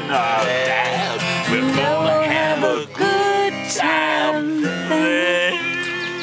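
Acoustic guitar strumming under two men singing a folk-rock song, with long held, wavering sung notes in the second half.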